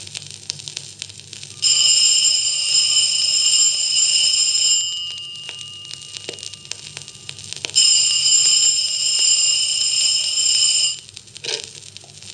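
An electric bell ringing in two long rings of about three seconds each, a pause of about three seconds between them, played back from a vinyl record with faint surface crackle.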